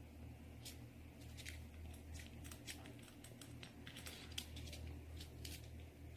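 Light, irregular clicking and tapping, many small ticks in quick succession, from a sun conure's beak working at chopsticks, over a steady low hum.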